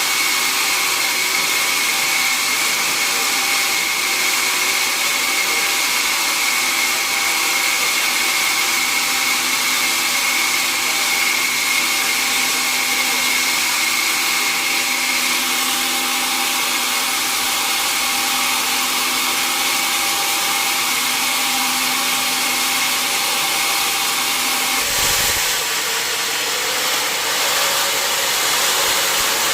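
Large sawmill saw cutting a mahogany log: a steady high whine over loud machine noise. About five seconds before the end it changes suddenly, with a short low thud, to a different, less tonal machine noise.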